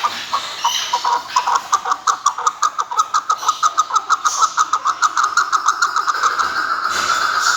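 Chukar partridge calling: a series of short clucking notes that speeds up steadily and runs together into a rapid, almost unbroken stream near the end.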